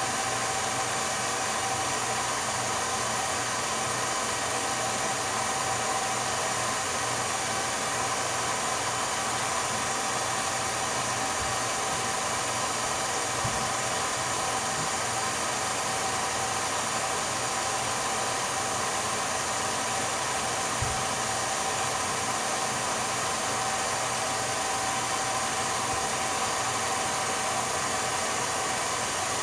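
Steady, unchanging hiss with a faint steady hum underneath and no other sound.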